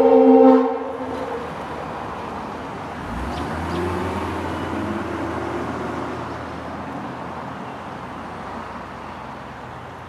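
A Leslie RS3L three-chime air horn's chord, the loudest sound, cutting off under a second in. It is followed by the rumble of a passing vehicle that swells a few seconds in and then slowly fades away.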